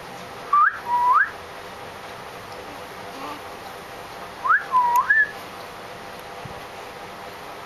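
Someone whistling close by: a short phrase of a quick upward glide, a low held note, then another upward glide, whistled twice about four seconds apart.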